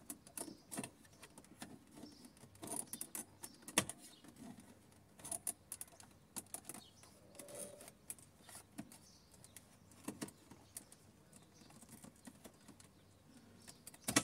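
Irregular plastic clicks, taps and scrapes of a trim tool working around the shifter surround trim of a 2011 Toyota RAV4's center console, prying the panel loose. The sharpest click comes nearly four seconds in.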